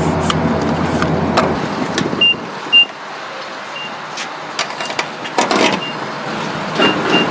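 Vehicle running: a steady rumble and road noise, with scattered clicks and a sharp knock nearly three seconds in.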